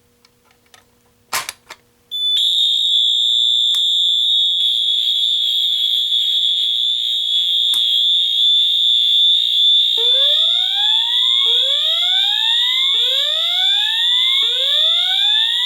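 A pull station is pulled with a couple of sharp clicks, then about two seconds in fire alarm horns start sounding a loud, continuous high-pitched tone. About ten seconds in, a second signal joins over it: a rising whoop sweep repeating about every one and a half seconds.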